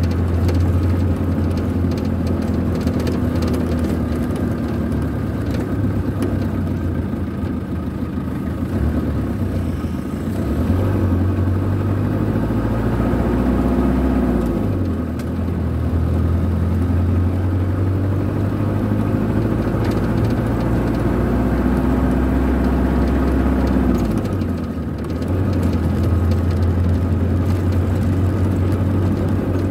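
Vehicle engine running under way, heard from inside the cab: a steady low drone whose pitch climbs gradually, with three brief dips, about ten, fifteen and twenty-five seconds in.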